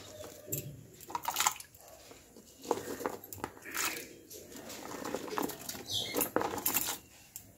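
Irregular light knocks, clinks and rustles of kitchen handling as the cut vegetables go into a kadai of water to be parboiled.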